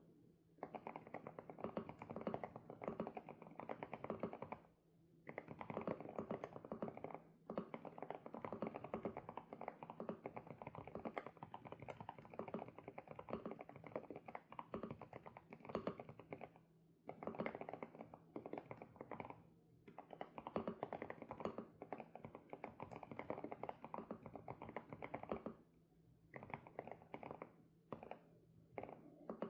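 Fast typing on an SPM PL108W mechanical keyboard with Ara Strawberry Milk Sunset switches: dense runs of key clacks lasting a few seconds each, broken by short pauses.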